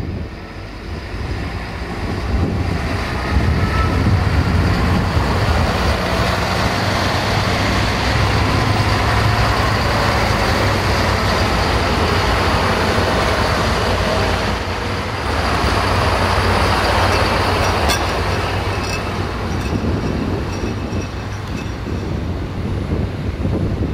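Two coupled Siemens Desiro diesel multiple units passing close by, their diesel engines running under a steady low rumble of wheels on rail. A few sharp clicks from the wheels come about three quarters of the way through.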